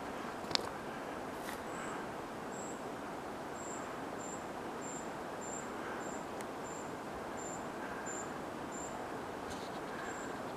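Steady rushing background noise. Over it, a faint, very high, thin chirp repeats about every half second, roughly a dozen times. There is a single sharp click about half a second in.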